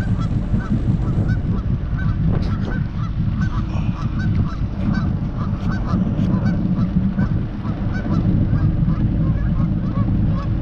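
A flock of geese honking, many short calls overlapping throughout, over a steady low rumble.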